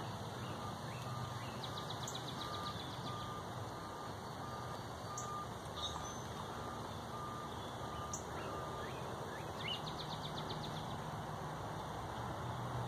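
Electronic beeping: one steady pitch repeating about twice a second, which stops about two-thirds of the way through. A steady outdoor hiss runs underneath, with a couple of short, high, rapid trills.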